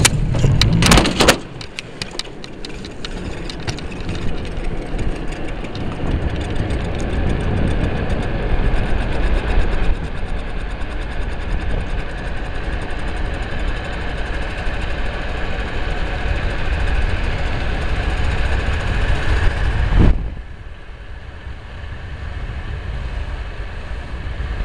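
Unpowered soapbox sidecar cart clattering over the aluminium chequer-plate start ramp, then its wheels rolling down the asphalt road with a steady rushing noise that builds as it gains speed. The noise drops suddenly about 20 seconds in.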